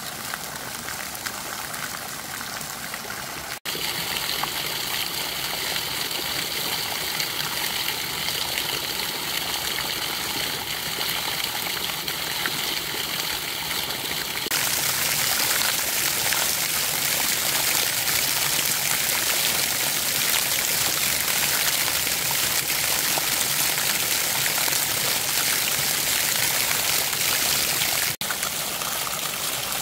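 Shallow stream water running and trickling steadily over stones and plants. The sound changes abruptly three times, about four seconds in, about fifteen seconds in and near the end, getting louder and brighter at the second change.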